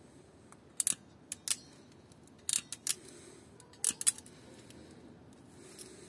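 Sharp snips and clicks of a small hand tool working on thin car wiring, about eight of them, some in quick pairs, over the first four seconds.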